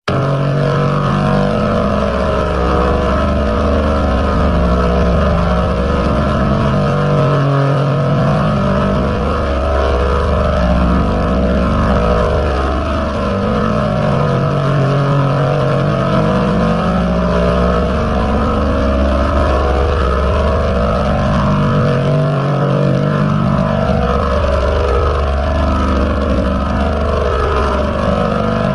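Heavily processed 'G Major' meme audio edit: pitch-shifted copies of one sound layered into a loud, dense drone with many crossing rising and falling pitch sweeps. The low hum drops out briefly twice.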